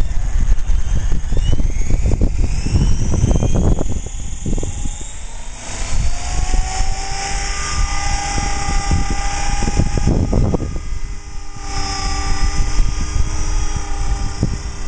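CopterX CX 500 SE 500-size RC helicopter spooling up: its rotor and drive whine rises in pitch over the first five seconds or so, then holds steady at head speed, dipping briefly a little after ten seconds. Wind buffets the microphone with a heavy low rumble.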